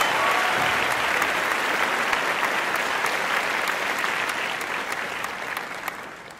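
Audience applauding, with individual claps audible, dying away near the end.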